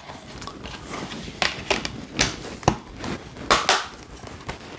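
A clear plastic Blu-ray keep case being closed and handled on a tabletop: about half a dozen sharp plastic clicks and taps, spread unevenly, the loudest about three and a half seconds in.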